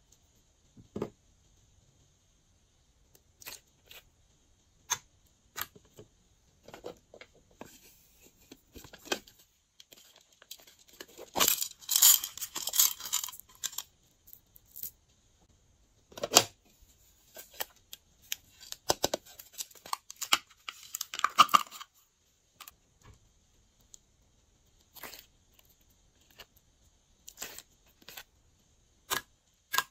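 Hands working glossy slime: scattered sticky clicks and pops, with two denser stretches of crackling and tearing sounds, about twelve and twenty seconds in.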